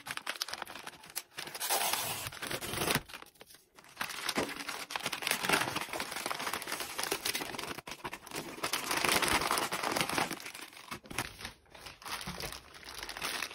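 Kraft-paper mailer bag crinkling and tearing as it is opened by hand and the items inside are pulled out, with plastic wrapping rustling. The handling comes in bouts, with a short lull about three to four seconds in.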